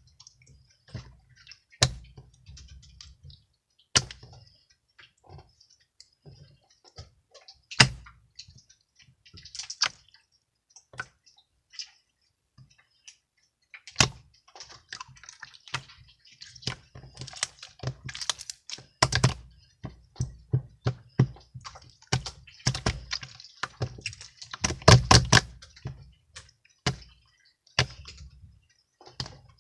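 Irregular clicks and taps, scattered at first and coming thick and fast in the second half, with the busiest run a little before the end.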